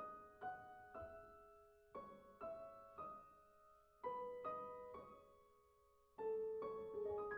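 Quiet solo piano background music: a slow, gentle melody of single struck notes, each ringing and fading, played in short phrases of about three notes.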